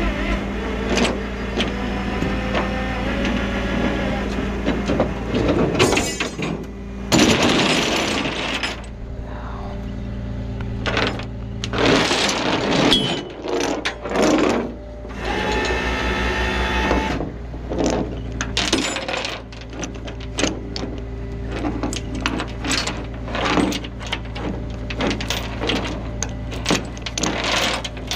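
A tow truck's engine idling steadily under metallic clanks, clicks and scrapes of steel rigging (winch cable, snatch block and hooks) being handled on the truck's steel diamond-plate deck, with a quick run of sharp clicks in the last several seconds.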